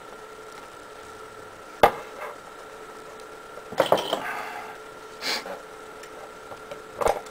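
Sharp clicks and knocks of a pepper shaker and a roll of electrical tape being handled on a hard surface. There is a loud click about two seconds in, a clatter with rustling around four seconds, and another click near the end, over a faint steady hum.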